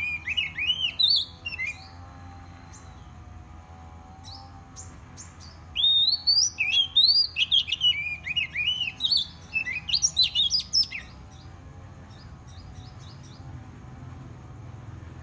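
Oriental magpie-robin singing: quick bursts of varied whistled notes that sweep up and down. There is a short phrase at the start and a longer, denser run from about six to eleven seconds in, with a few faint notes between.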